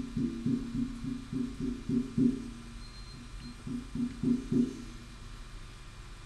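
Live improvised music on a plucked string instrument: a run of repeated low plucked notes, two to three a second, that stops about four and a half seconds in.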